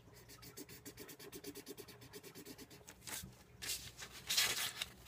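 Felt-tip marker scribbling on paper in rapid back-and-forth strokes, filling in a drawn heart. About three seconds in the sheet of paper is picked up and handled, with a louder rustle.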